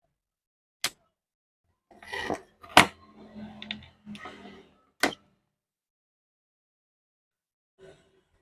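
Handling noises on a workbench. There is a sharp click about a second in, then a cluster of knocks and clatter from about two to four and a half seconds with the loudest click near three seconds, another sharp click at about five seconds, and a faint rustle near the end.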